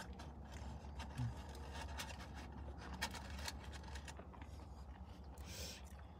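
Quiet chewing of french fries with faint irregular mouth clicks, over a steady low hum. A short soft hiss comes near the end.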